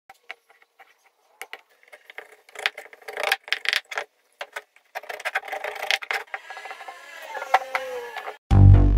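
Hardwood pieces of a Japanese joint being handled and fitted together: sharp wooden clicks and knocks, then a run of scraping and rattling with a few squeaks as the tight pieces rub together. Loud music starts about half a second before the end.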